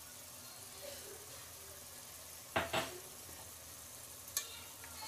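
Chicken gravy cooking in a nonstick pot with a faint steady sizzle, broken by a few sharp clicks: two close together about two and a half seconds in, and two smaller ones near the end.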